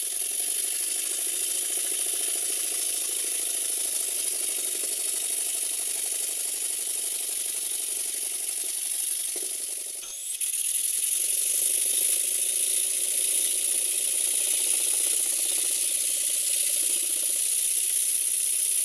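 Stuart Twin Launch twin-cylinder model steam engine running on compressed air: a steady hiss of exhausting air over a fast, fine clatter of the running gear, with a short break about halfway through. Its valve timing is being set, with the eccentrics adjusted to make it run smoother.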